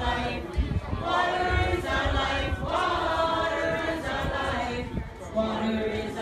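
A crowd singing a protest song together, its many voices holding long notes.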